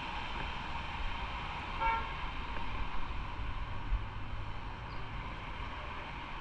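Motorcycle engine running steadily under general traffic noise on a wet city street, with one short vehicle horn toot about two seconds in.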